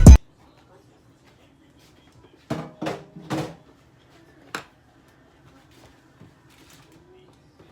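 Music cuts off abruptly, leaving quiet room tone. A few seconds in come three brief handling sounds in quick succession, then a single sharp click, then faint small knocks.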